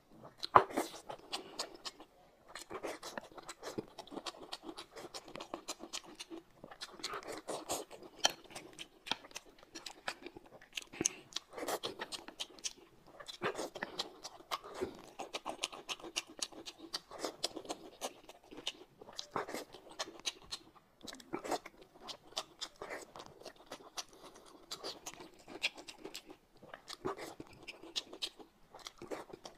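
Close-miked eating sounds: a man chewing boiled dumplings, wet and smacking, with irregular sharp clicks that include chopsticks tapping the plate.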